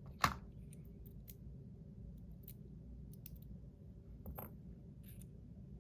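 A sharp metallic click, then scattered faint clicks and taps of small metal parts as a bearing is pushed out of a fidget spinner.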